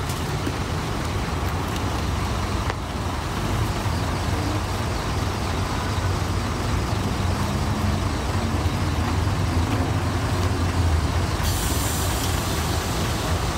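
Parked heavy diesel trucks idling close by: a steady low engine rumble with no break. About eleven seconds in, a steady hiss joins it.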